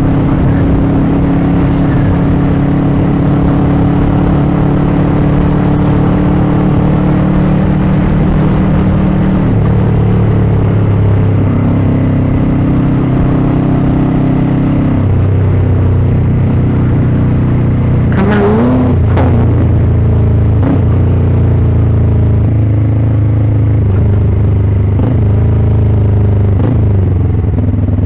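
Motorcycle engine running under way at steady speeds, its pitch stepping to new levels several times as the revs change, with a short rise in pitch a little past the middle.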